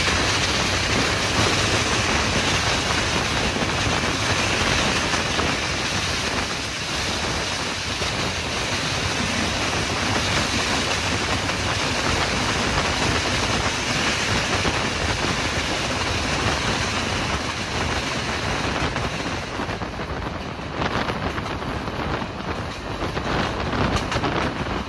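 A moving train running steadily with a dense rushing rattle. About twenty seconds in, the hiss thins and a run of short knocks comes through.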